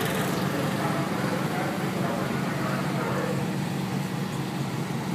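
Dragster engine running at a steady idle, an even low rumble with no revving.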